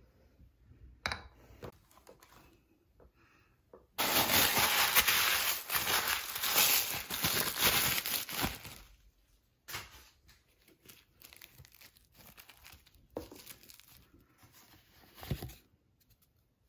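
Plastic packaging being unwrapped: loud crinkling and tearing for about five seconds, starting suddenly about four seconds in, then softer intermittent rustling with one brief louder crackle near the end.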